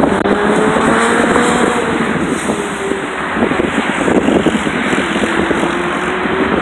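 Highway traffic passing: a steady rush of vehicles with engine hums that drift slowly in pitch as they go by.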